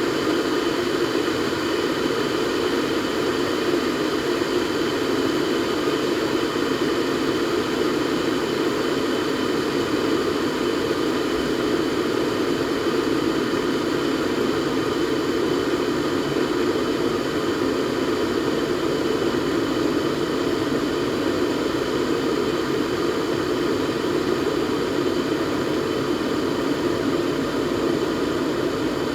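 Kettle heating water toward the boil: a steady, even rushing rumble with a faint thin high tone above it.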